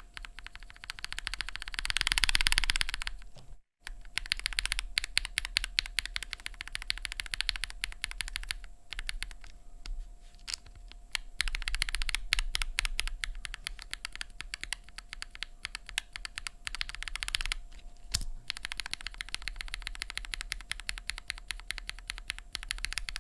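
Typing test on a custom mechanical keyboard with linear switches, aluminium plate and GMK keycaps: a steady stream of key strikes with faster, louder runs of typing. The sound cuts out completely for a moment near the fourth second.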